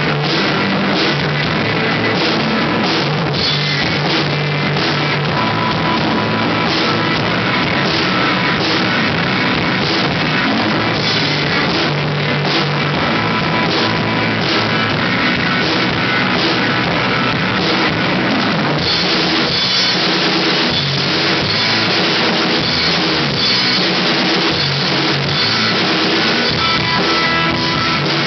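Rock band playing: drum kit with cymbals and guitar. The mix grows brighter and fuller about two-thirds of the way through.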